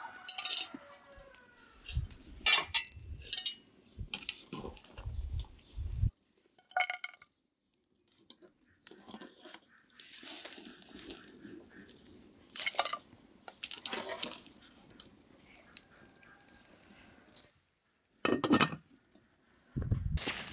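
A metal wire skimmer clinks and scrapes against cooking pots as boiled meat is lifted out of a steaming cauldron into a second pot. It is a string of sharp knocks and clinks broken by short pauses.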